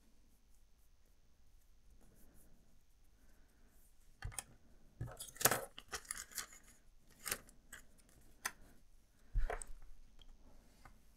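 A paper sticker strip being peeled off its backing sheet, the sheet crackling and rustling in the hands. It starts about four seconds in as a run of sharp, irregular crackles, the loudest near the middle.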